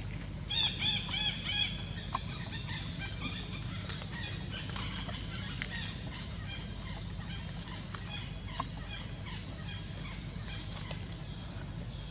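Four short, high, rising-and-falling animal calls in quick succession about half a second in, followed by faint scattered chirps over a steady high-pitched hum.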